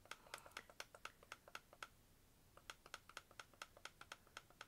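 Faint, rapid light clicking, about five or six small clicks a second, stopping briefly about two seconds in and then resuming.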